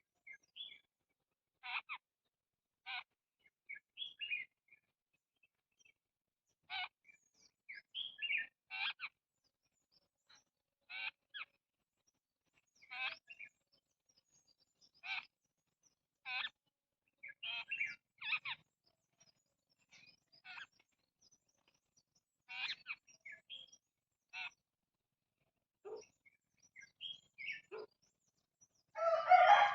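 Small birds chirping in short, separate calls, one every second or two. Near the end a rooster starts crowing, much louder than the chirps.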